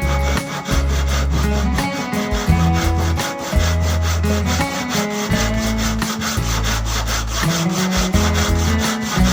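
Wood being sawn, with rasping strokes, over background music that has a deep bass line and a steady beat.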